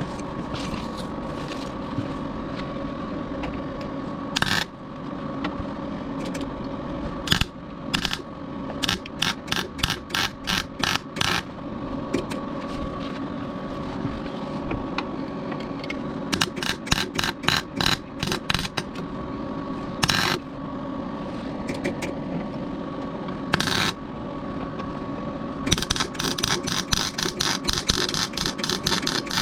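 Welding on a car body in short repeated bursts, each a quick run of crackling stitches, with pauses between groups over a steady hum. The metal is a small steel piece being welded on to form a new jacking point on rust-repaired bodywork.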